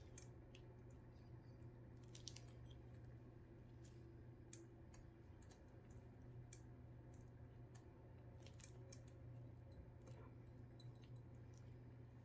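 Near silence: a faint steady low hum with a few faint scattered clicks.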